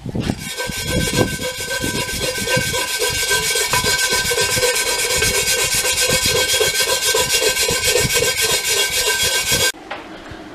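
Power wire brush scouring rust off a cast iron Dutch oven: a steady motor whine over a harsh, rapid scrubbing that stops suddenly near the end.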